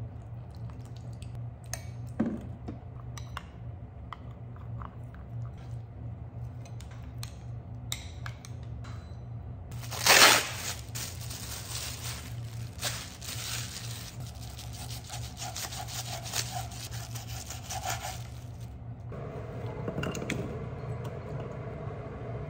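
Light clicks and taps of a spoon mixing batter in a glass bowl. About ten seconds in, a plastic bag is torn open, the loudest moment, and then crinkles and rustles for about eight seconds as a piece of thawed beef is unwrapped from it. A steady low hum runs underneath throughout.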